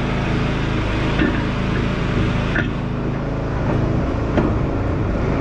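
A steady engine-like motor drone, shifting slightly in pitch about four seconds in, with a few light metallic clicks over it.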